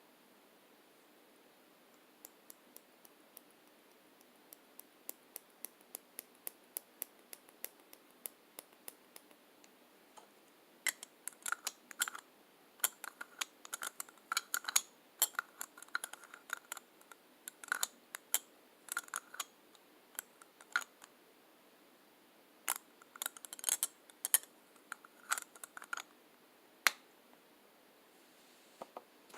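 Lipstick tube and cap handled close to the microphone: a run of light, evenly spaced clicks, about three a second, growing louder, then from about eleven seconds in louder, irregular clusters of sharp clicks and taps.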